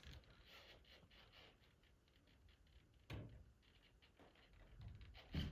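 Near silence with faint scattered scrapes and ticks, a soft low knock about three seconds in and another near the end.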